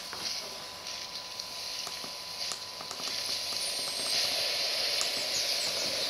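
Outdoor ambience from a video soundtrack played through an iPad Air's built-in speaker: a hiss that grows louder, with faint ticks and a few short high chirps.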